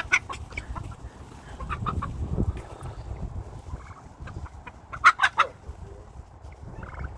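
Chickens clucking with short, scattered calls, a quick run of louder calls about five seconds in, and a low rumble about two seconds in.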